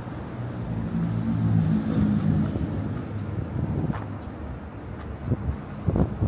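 A motor vehicle passing close by, its low engine hum swelling and fading over about three seconds, followed by a few short low thumps near the end.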